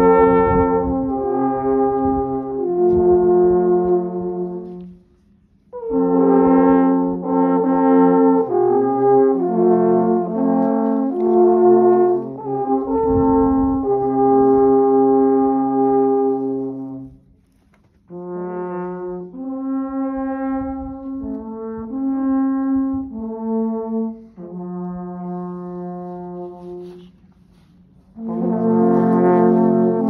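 An ensemble of about seven alphorns playing a slow tune in long held notes sounding together in harmony. The phrases are broken by short pauses, with a softer passage in the middle before the full, louder sound returns near the end.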